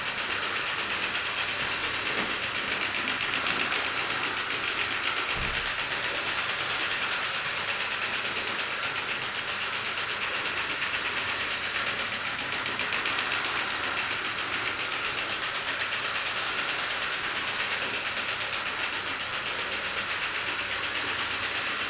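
Mamod SL2 live-steam toy locomotive running under steam with two wagons in tow: a steady hiss of steam with fast, even exhaust beats from its small cylinders.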